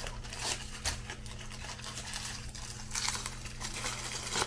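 Light scraping and clicking of a utensil working gravy in a hot pan, over a steady low hum.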